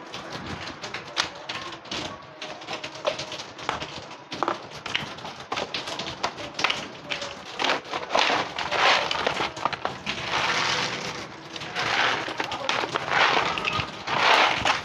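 Cats crunching dry kibble, a dense run of quick small clicks and crackles. There are louder rustling bursts in the second half.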